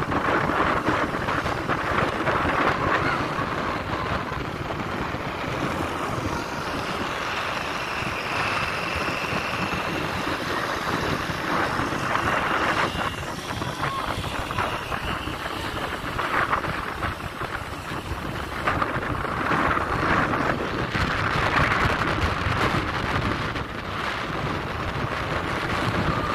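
Steady rush of wind buffeting the microphone while riding a motorbike, mixed with the bike's engine and tyre noise on the road.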